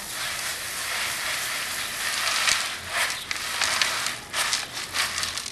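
Farm tractor pulling a trailer drives up close, heard as a rough, rattling hiss full of short crackles.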